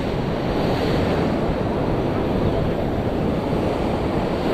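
Steady wash of sea surf breaking on the beach, with wind rushing on the microphone.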